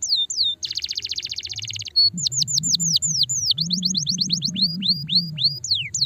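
Domestic canary singing: a run of quick notes that each sweep down in pitch, broken about half a second in by a fast rattling trill lasting over a second, then more falling notes and a few rising ones.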